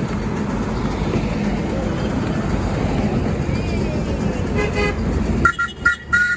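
Steady rumble of miniature railway coaches running along the track; near the end a horn sounds once, followed by three short two-tone toots as the rumble drops away.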